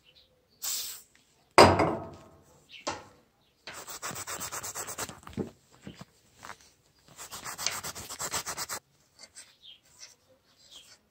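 A short hiss from an aerosol can, then a loud knock that rings briefly. Then come two spells of fast back-and-forth scrubbing of the M95 bayonet's steel blade by hand with an abrasive pad, each lasting about two seconds.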